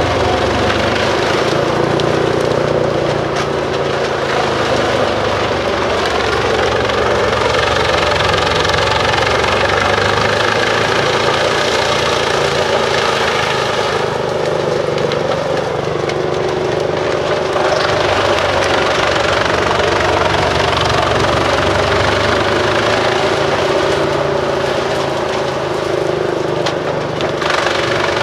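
Bruks 1006 ST truck-mounted wood chipper running on its own large diesel engine: a steady, loud drone whose pitch shifts several times.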